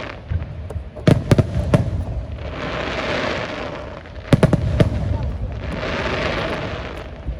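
Aerial fireworks bursting: a cluster of sharp bangs about a second in and another about four and a half seconds in. Between and after them a rush of noise swells and fades.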